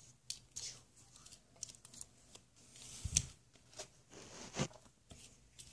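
Small toys being handled against a plastic toy-truck carrier case: scattered light clicks and taps, with two louder knocks, about three seconds in and about four and a half seconds in.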